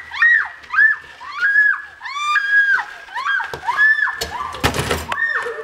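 Wheelbarrow squeaking over and over as it is pushed, about two high squeaks a second at much the same pitch. A short clatter comes near the end.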